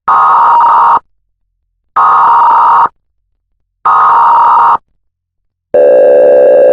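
Emergency Alert System–style alarm: three one-second bursts of buzzy data tones about a second apart, the SAME header of an alert, then a steady alert tone begins near the end.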